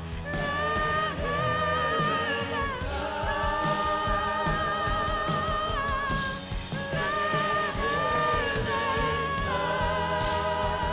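Live church worship music: singers holding long, wavering notes between lyric lines over a band with steady bass and sustained keyboard chords.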